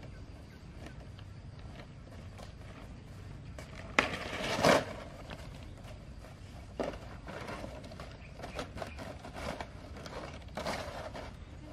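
Palm fronds rustling as they are dropped onto grass and laid out by hand: a sharp crack and a loud rustle about four seconds in, then several shorter rustles.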